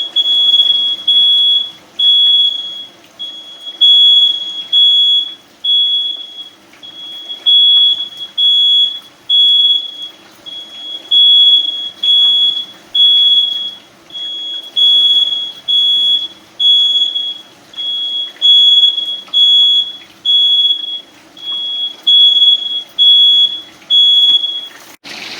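Household smoke detector sounding, a loud high-pitched beep repeating over and over with short pauses, set off by smoke from deep-frying chicken wings in hot oil. It cuts off abruptly near the end.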